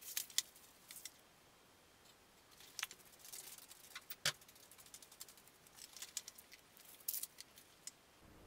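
A metal kitchen spoon stirring and prodding polymorph thermoplastic pellets in hot water: scattered light clinks and scrapes, the sharpest about half a second and about four seconds in.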